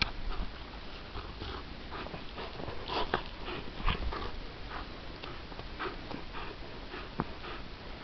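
A Bernese mountain dog puppy bounding through snow and snapping at a hanging rope toy: short, irregular scuffs and breathy noises from the dog, loudest about three to four seconds in.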